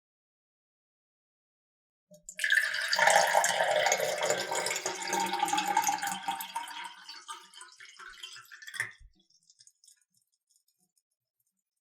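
Water poured into a cup: it starts about two seconds in as a full stream, thins to a trickle and stops about nine seconds in, ending with a light knock.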